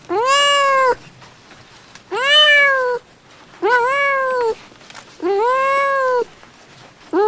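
Very young kittens meowing: a series of long, loud mews, each rising then falling in pitch, about one every second and a half, the fifth starting near the end.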